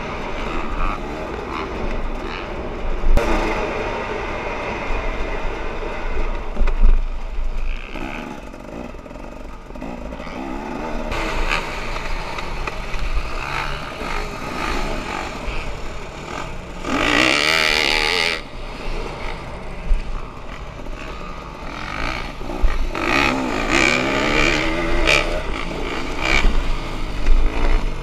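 Dirt bike engine revving up and down as it is ridden over a motocross track, with a steady low rumble of wind on the microphone. A louder burst of revving comes about seventeen seconds in.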